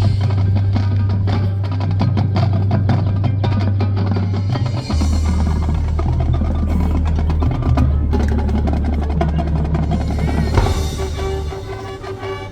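High school marching band playing its competition show: rapid, dense percussion hits over long held bass notes that change pitch twice, easing off in loudness near the end.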